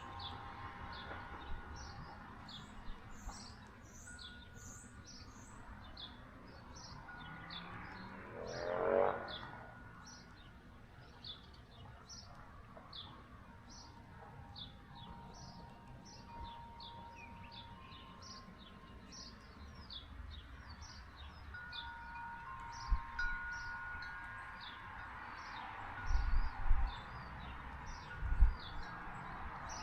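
Wind chimes ringing softly in a breeze while small birds chirp over and over, about twice a second. About nine seconds in a brief rising whoosh passes, and near the end come a few low thumps.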